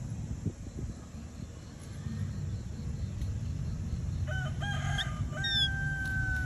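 A rooster crowing, starting about four seconds in: a few short notes and then one long held note. A steady low rumble runs underneath.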